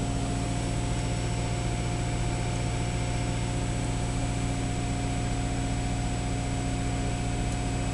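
Subaru Forester's 2.0-litre flat-four boxer engine at a steady fast idle of a little under 2,000 rpm, still warming up after a cold start in about −7 °C frost, heard from inside the cabin.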